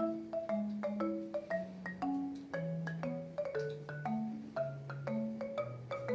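Background music: a tune of short, quickly fading mallet notes, several a second, over longer-held low bass notes.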